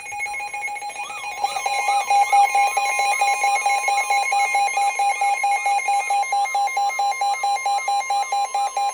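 Emergency Alert System attention signal for a tornado warning: a loud, steady two-tone alarm with a rapid even pulsing beep and a repeating rising-and-falling tone layered over it. It gets louder about a second and a half in.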